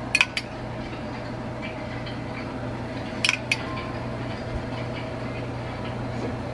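A metal spoon clinking against a small glass measuring cup while melted butter is scooped out: two quick pairs of clinks, one near the start and one about three seconds in, over a steady low hum.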